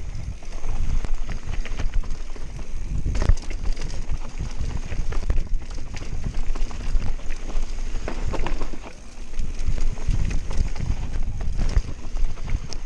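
Canyon Spectral AL 7.0 EX full-suspension mountain bike descending a dirt trail at speed: tyres running over packed dirt and bumps, with the bike clattering in irregular knocks over a steady low rumble of wind on the camera microphone.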